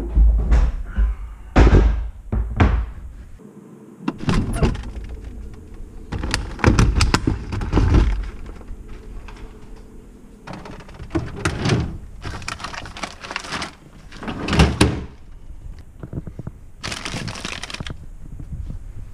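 A run of thuds, knocks and clatters as things are handled and set down in a small room, with a deep rumble of handling noise in the first few seconds.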